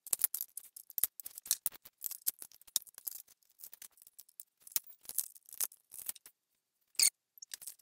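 Irregular small clicks and rattles of hands working wires, plastic connectors and a solenoid on an aluminium mounting plate, thickest in the first three seconds, with a sharper click near the end.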